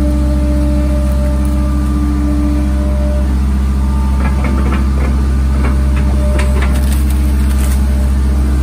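Excavator's diesel engine running steadily with a low hum. From about halfway through, scattered knocks and rattles are heard over it.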